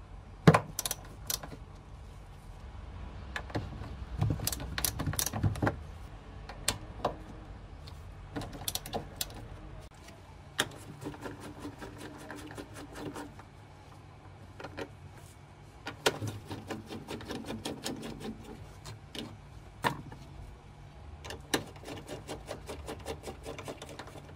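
Hand ratchet wrench clicking in irregular runs as it works the upper strut-mount nuts loose, with sharp metal clinks of the socket and extension. The loudest clink comes about half a second in.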